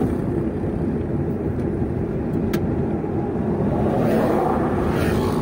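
Steady road and engine noise of a vehicle driving along at a constant speed, with one faint click about two and a half seconds in.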